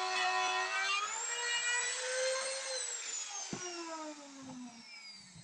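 Electric trim router whining as it cuts a groove in a wooden door panel. About a second in it rises in pitch as it comes free of the wood, then it is switched off and winds down with a falling whine. There is a single knock partway through.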